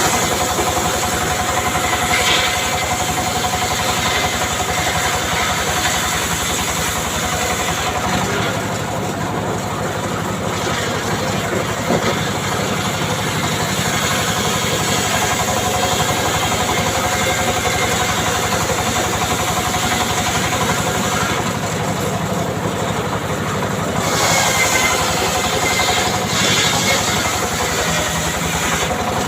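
Engine-driven wood saw running steadily while cutting mahogany, with a slight change in pitch and load twice.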